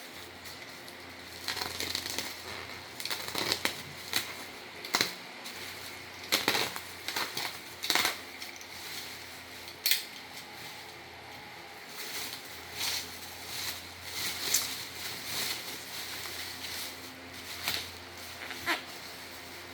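Keyboard box and packaging being opened and handled: irregular clicks, taps and short rustles of cardboard and plastic, a few of them sharper knocks.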